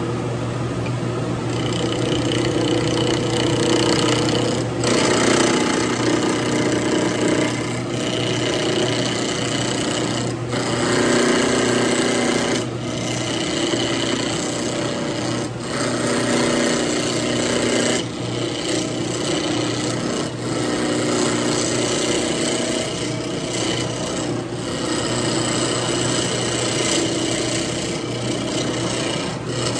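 Wood lathe spinning a square bocote blank while a turning tool cuts off its corners: a steady rasping scrape over the motor's hum. It breaks off briefly every few seconds as the tool is lifted off and set back on.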